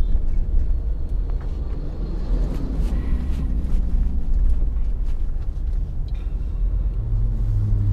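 Car driving along a road, heard from inside: a steady low rumble of engine and tyres, with a brief hum near the end.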